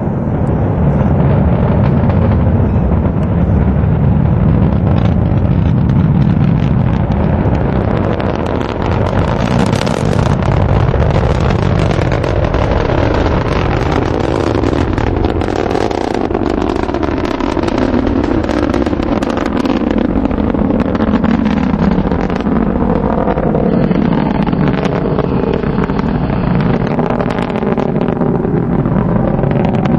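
Steady, loud roar of a Delta IV Medium+ (4,2) rocket in ascent: its RS-68 main engine and two strap-on solid rocket motors firing as it climbs away.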